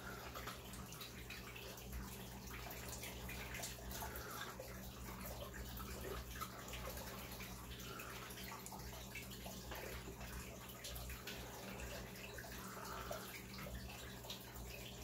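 Steady trickling and splashing of water from an aquarium filter, over a low electrical hum. A couple of faint sips from a small tea cup come in the middle and near the end.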